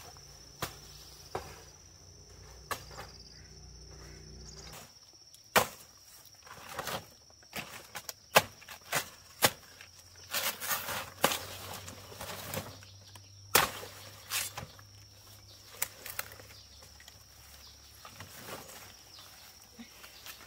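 A steady, high-pitched insect trill, with irregular sharp knocks, taps and rustles throughout, the loudest bunched in the middle.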